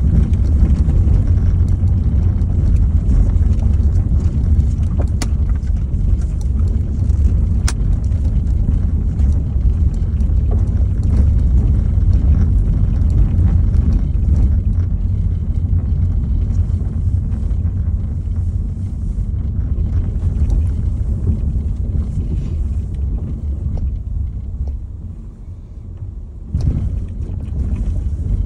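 A vehicle driving slowly along a dirt road, heard from inside as a steady low rumble. It eases off briefly near the end, then a single thump.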